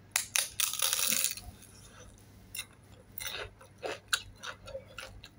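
A person biting into a fried chili dynamite roll, a green chili wrapped in a spring-roll wrapper, with a crunch that is loudest in the first second. Then chewing, with short scattered clicks and soft mouth noises.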